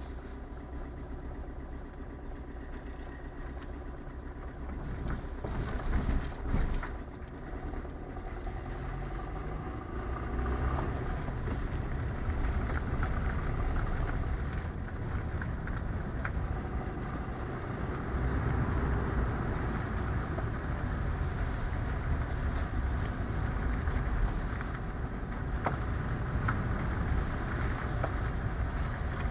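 Car engine and tyre rumble heard from inside the cabin as the car pulls away and drives on. Its level rises after about ten seconds. About six seconds in come a couple of loud thumps as the wheels go over the level-crossing rails.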